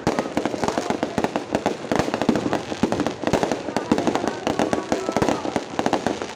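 Fireworks exploding in a dense, continuous barrage of sharp bangs and crackles, many per second.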